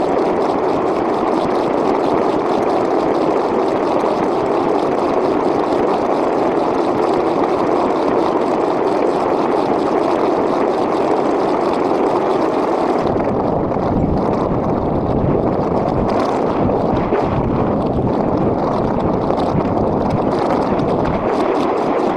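Continuous engine noise of stock cars running laps on an oval track, a dense unbroken wash of sound. About thirteen seconds in it changes, turning duller and deeper as the high end fades.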